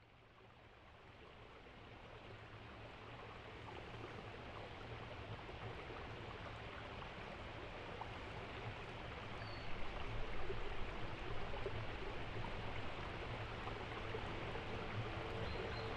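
Electroacoustic soundscape composition opening with a steady, rushing stream-like noise that fades in over the first few seconds. A low hum runs beneath it, and a steady tone joins near the end.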